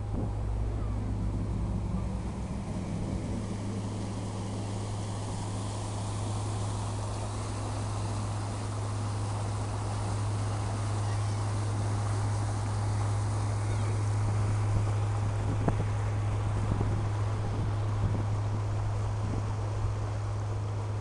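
Lake ferry's engine giving a steady low drone, with water rushing in the churned wake as the boat pulls out of port.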